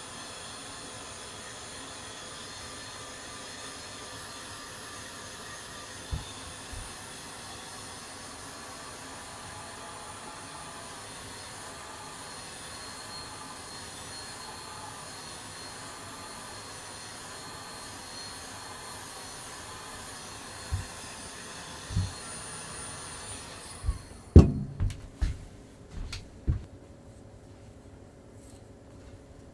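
A small electric motor or blower running with a steady whir, with a few light knocks. It switches off suddenly about 24 seconds in, and several clunks and knocks follow.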